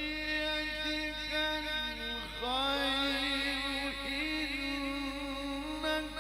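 A man reciting the Quran in the melodic tilawah style into a microphone: long drawn-out notes with wavering, ornamented turns of pitch, and one short break for breath about two seconds in.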